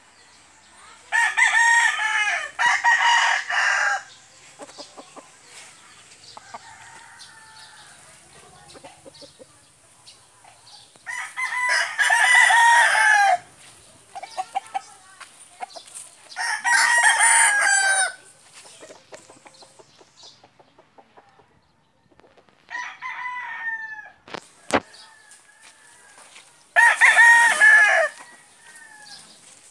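Rooster crowing again and again: five crows a few seconds apart, the fourth fainter than the rest. A single sharp click comes shortly after the fourth crow.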